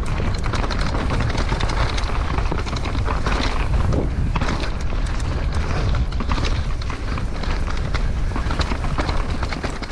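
Downhill mountain bike ridden fast down a dirt forest trail, heard from a helmet camera: wind buffeting the microphone, knobby tyres rolling over dirt and dry leaves, and the bike rattling with many quick clicks and knocks over the rough ground.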